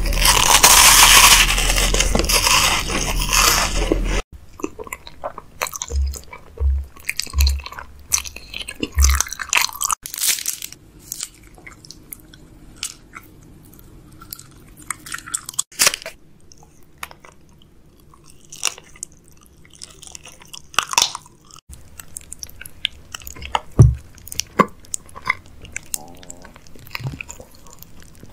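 Close-miked eating: about four seconds of loud, dense crackling, then crisp bites and crunches into a chocolate wafer and chocolate-coated sweets with wet chewing between them. The sound cuts abruptly from one take to the next several times.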